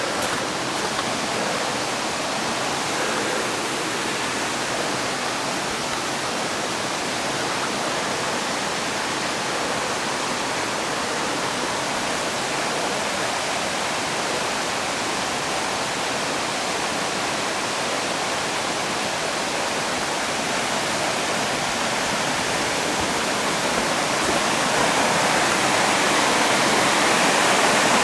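Steady rush of water from a rocky forest stream's rapids, growing louder over the last few seconds.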